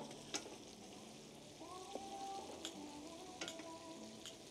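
Stew cooking in a pot over a wood fire: a faint sizzle with a few sharp pops and crackles scattered through it.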